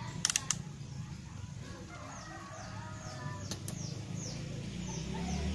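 Birds calling in the background: a run of short, high, falling chirps, about two a second, through the second half, with wavering lower calls just before them. A few sharp clicks come near the start and again in the middle, over a low steady hum.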